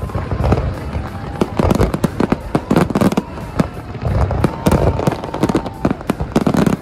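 Fireworks display with many shells bursting in quick succession: dense, irregular bangs and crackles several times a second over a low rumble.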